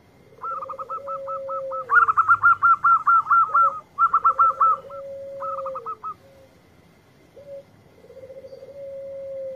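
Zebra dove (perkutut) cooing: three long, trilled low phrases that each drop in pitch at the end. Over the first two, a rapid run of short, higher chirping notes, loudest about two to four seconds in.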